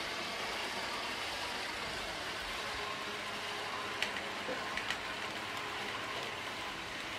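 Model trains running on a layout: a steady rolling hum, with a few light clicks about four and five seconds in.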